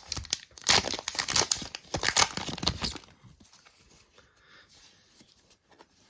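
Foil trading-card pack wrapper being torn open and crinkled for about three seconds, then only faint rustling of handling.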